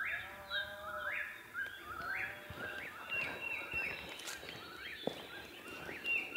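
Wild birds singing, one repeating a short rising phrase over and over.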